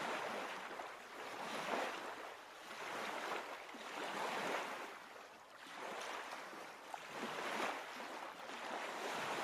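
Waves washing in, a rushing noise that swells and ebbs about every one and a half seconds.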